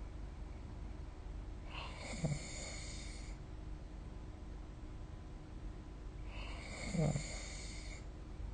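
A sleeping person snoring, two snores about five seconds apart. Each is a breathy rasp lasting a second or more, with a short low tone in it that falls in pitch. A steady low hum runs underneath.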